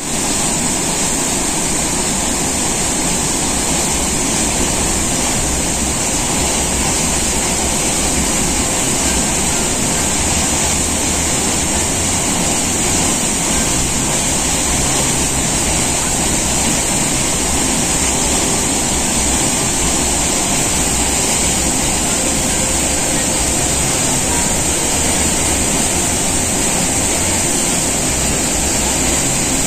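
Davis Falls (Patale Chhango) in rainy-season flood, a heavy torrent plunging into a rock gorge: a loud, steady rush of falling water.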